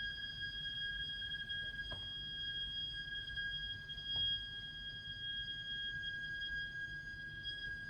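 Heat interface unit (HIU) and heating pipework giving off a continuous, shrill, high-pitched shriek: one steady tone with overtones above it, an abnormal plumbing fault noise.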